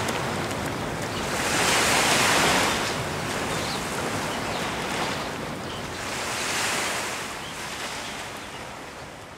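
Sea waves washing in, two swells of rushing surf rising and falling, then fading away near the end.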